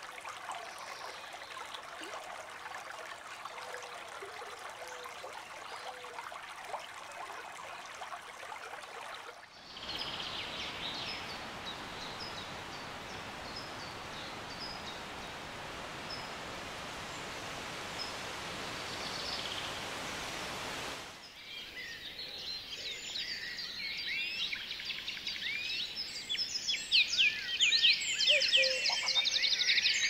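Flowing stream water with faint bird calls. About ten seconds in it gives way to a steadier, fuller rushing noise with scattered high chirps. From about twenty-one seconds many songbirds sing, growing louder toward the end.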